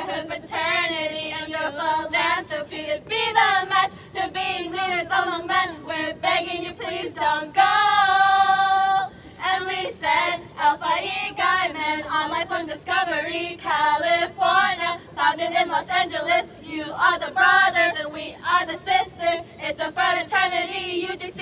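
Song with female lead vocals played through a portable loudspeaker as dance music, the voice holding one long note about eight seconds in.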